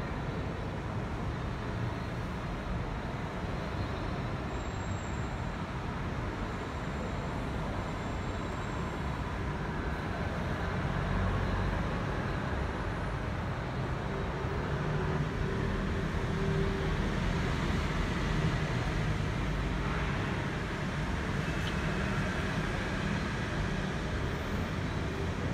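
Steady low rumble of background noise at a railway station, a little louder through the middle, with no distinct events.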